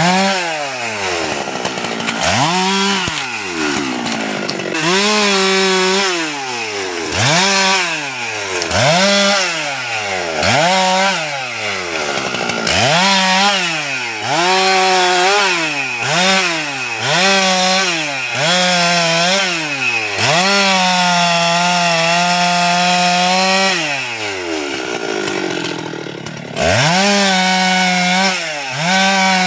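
Husqvarna 390XP two-stroke chainsaw cutting teak, revved up and down again and again, its pitch rising and falling every second or two. Near the end it holds high revs for a few seconds, drops to low revs, then revs up again.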